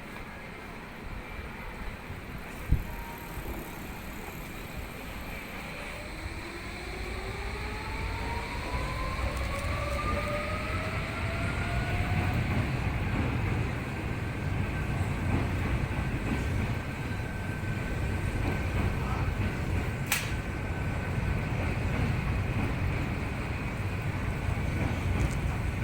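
Tokyu electric train pulling away, its inverter-driven traction motors whining upward in pitch for about six seconds. A heavy rumble of wheels on rail builds and carries on as it gathers speed. There is a single sharp knock about three seconds in.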